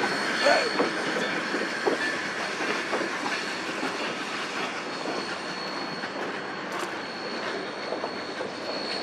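Narrow gauge freight train of empty flatcars rolling away over the rails, wheels clicking at the joints with a thin high steady squeal. The sound slowly fades as the train leaves.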